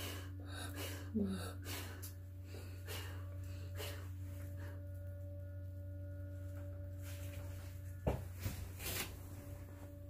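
Steady low electrical hum, the small heater that keeps the indoor flower enclosure warm, with light clicks and rustles of handling in the first few seconds and two sharp knocks about eight and nine seconds in.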